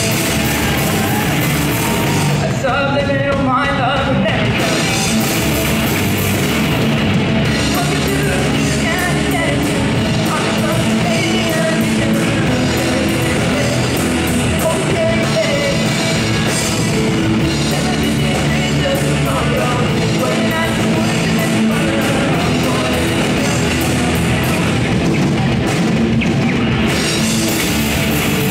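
Live rock band playing loud punk rock: two electric guitars through amplifiers, bass guitar and drum kit playing together without a break.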